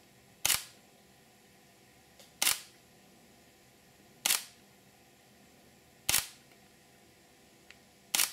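Sony NEX-6 mirrorless camera's shutter firing five times, roughly every two seconds, each a single sharp click taking one frame. A much fainter tick comes just before the second and the fifth clicks.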